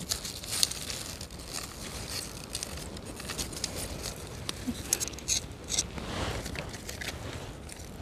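A small knife cutting through crisp sea kale stems, with leaves rustling and a run of short crackling snaps, thickest about five seconds in.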